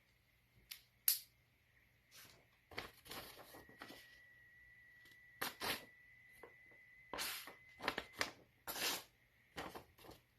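Paper being cut and torn with a sharp Damascus-steel balisong blade to test its edge: irregular short rustling, slicing strokes, the sharpest about a second in.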